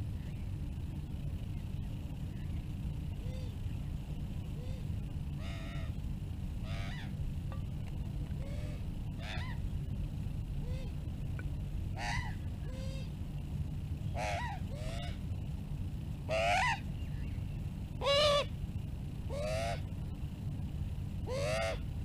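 Australian magpies calling: a series of short notes that bend up and down in pitch. They start faint and get more frequent and louder, with the two loudest about two-thirds of the way through, over a steady low rumble.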